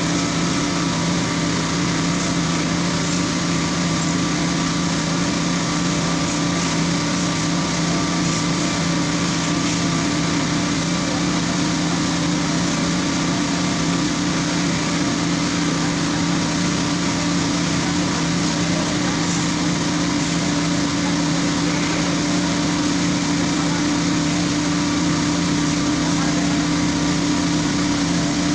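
A small engine running steadily at a constant speed, a continuous even drone.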